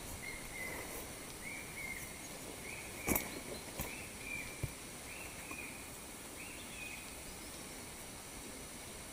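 A bird calling in the forest: pairs of short notes repeated about once a second, stepping gradually higher in pitch, over a steady high insect hum. Two sharp clicks about three seconds in.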